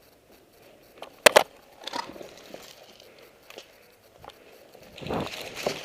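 Two sharp airsoft gun shots in quick succession about a second in, followed by scattered fainter clicks and, near the end, rustling and footsteps of players moving.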